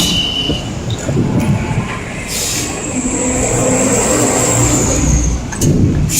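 Pandawa 87 intercity bus going by close, its engine running steadily, with a thin high whistle for a few seconds in the middle.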